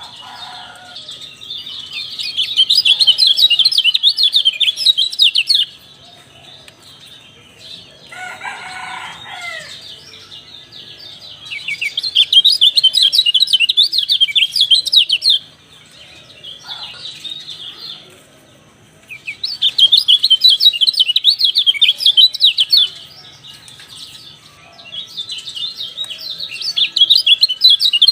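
Kecial dampuk, a white-eye, singing: bouts of rapid, high twittering a few seconds long with short pauses between them. About a third of the way in there is a lower, separate call.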